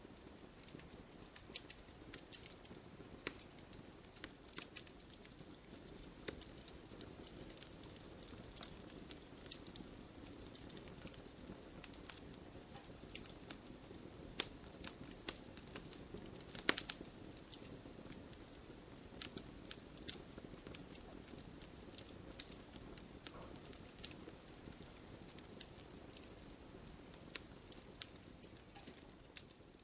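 Wood fire crackling in a fireplace: scattered sharp pops and snaps over a faint low rustle of burning, with a brief flurry of louder pops about halfway through.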